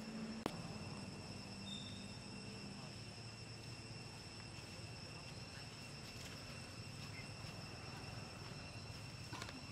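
Faint forest insect drone: several steady high-pitched tones held without a break over a light hiss. A single sharp click sounds about half a second in.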